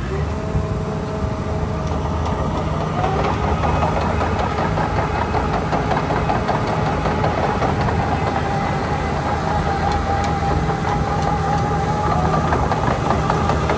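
Dynapac SD2500CS asphalt paver's diesel engine running steadily, its speed rising slightly about three seconds in.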